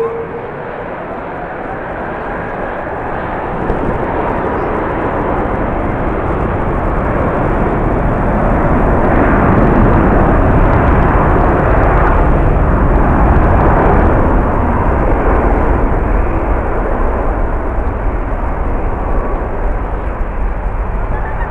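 A jet airliner passing by. Its engine noise swells to a peak about halfway through and then slowly fades. Gusty wind rumbles on the microphone underneath.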